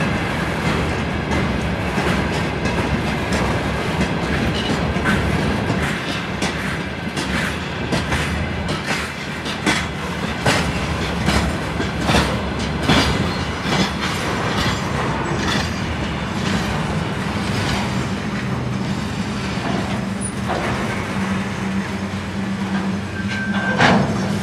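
Freight train wagons rolling past close by. Their wheels clatter over the rail joints in irregular clicks above a steady low rumble, and a brief high wheel squeal comes near the end.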